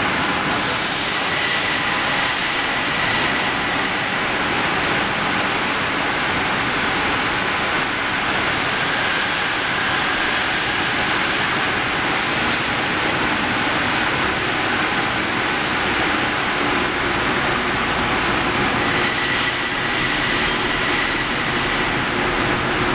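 Steady loud machinery noise of a hot-rolling angle-steel section mill: the roller table and mill stands running, with faint high metallic squeals that come and go near the start and again near the end.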